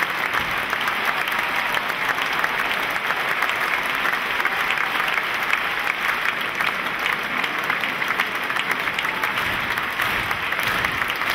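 Large concert audience applauding steadily, many hands clapping at once in a dense unbroken stream.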